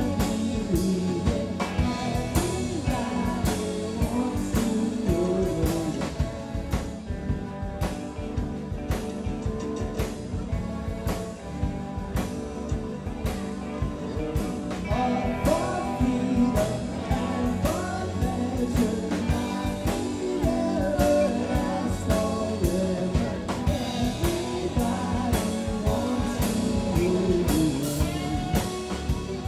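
Live band playing a song with electric guitar, bass guitar, drum kit and keyboard over a steady drum beat, a woman singing lead.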